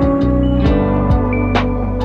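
Background music with held instrumental notes over a steady beat.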